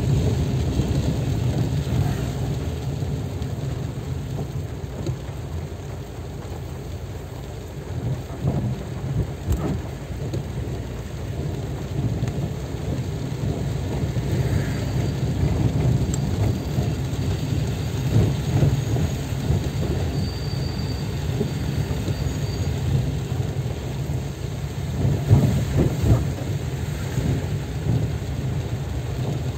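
Heavy rain pelting a car's roof and windshield, heard from inside the car, over a steady low rumble.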